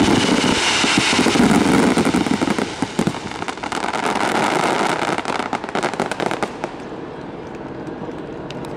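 Aerial fireworks in a dense barrage: many shells bursting at once with a thick, continuous crackle of bangs. It thins out and fades after about six seconds, leaving a quieter steady background.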